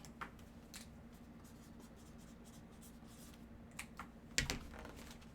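Faint handling noises of paper and card: a few soft scratches and light taps, the loudest about four and a half seconds in, over a low steady hum.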